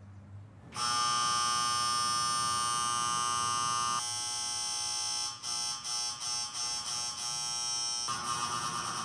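Electric doorbell buzzer pressed again and again. A long, loud buzz of about three seconds is followed by a run of short, broken buzzes, then another buzz near the end.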